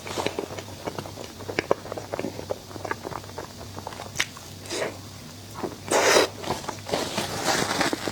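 Close-miked eating: crunchy bites and chewing of a dessert, many short sharp crackles and clicks, with one louder, longer crunching burst about six seconds in.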